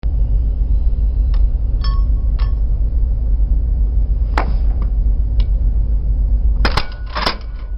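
Steady low rumble with scattered sharp metallic clicks and clinks, some ringing briefly. Near the end comes a quick cluster of clicks from a pistol being handled at its holster.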